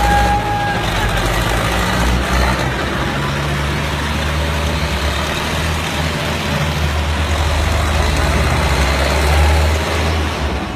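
Tractor diesel engine running steadily, with voices of onlookers mixed in.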